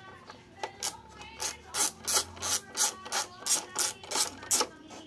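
Rhythmic scraping strokes, about three a second, of hands and tools working on the printer's parts during disassembly, growing louder after the first few and stopping shortly before the end.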